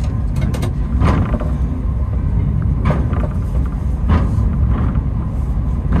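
Takao Tozan funicular cable car running downhill: a steady low rumble from the car, broken by a handful of sharp, unevenly spaced clacks from its wheels on the track.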